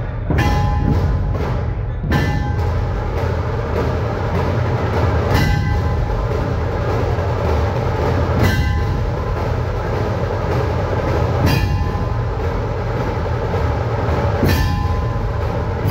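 Dhol-tasha ensemble drumming: big dhol drums pound under a dense rattle of tasha snare drums. A sharp, ringing strike cuts through about every three seconds.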